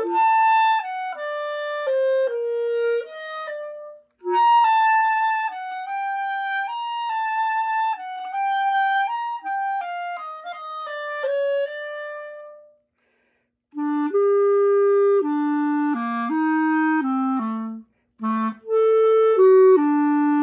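Unaccompanied music: a single wind instrument playing a slow melody of held notes, in phrases with short breaths between them. After a pause about 13 s in, the melody continues in a lower register.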